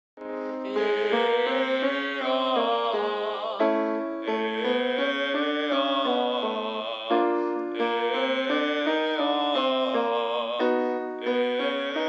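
A young man's singing voice running through stepwise up-and-down vocal exercises with piano, the kind sung in a voice lesson, in phrases about three and a half seconds long with a short break between each.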